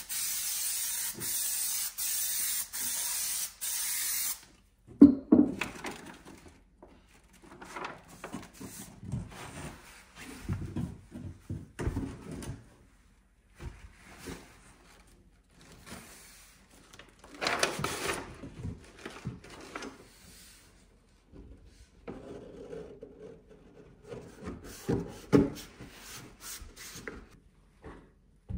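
Aerosol spray-adhesive can hissing in several bursts for about four seconds. Then come knocks, thumps and scraping as vinyl plank pieces are fitted and pressed onto wooden stair treads and risers, with one more short hiss a little past the middle.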